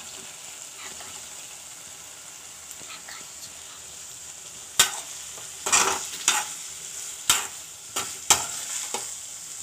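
Oil and tomato masala sizzling in a hammered metal kadai as chopped ridge gourd goes in. About halfway through, a spatula starts stirring, scraping and knocking against the pan in a dozen or so sharp, irregular strokes.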